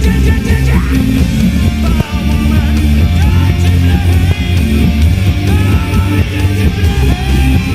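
Loud rock music with electric guitar over a heavy, steady bass.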